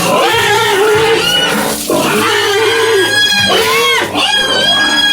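Pigs squealing in long, wavering cries with short breaks between them, going higher and shriller in the second half.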